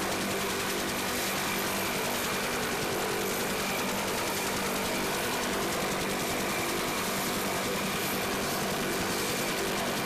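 Military helicopter turbine engines and rotors running steadily, with a constant high turbine whine over the engine and rotor noise.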